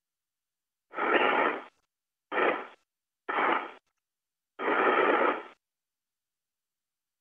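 Four short bursts of hiss over the space-to-ground radio loop, each starting and cutting off abruptly as the channel is keyed open and closed, with no words in them. The bursts are about half a second to a second long, and the fourth is the longest.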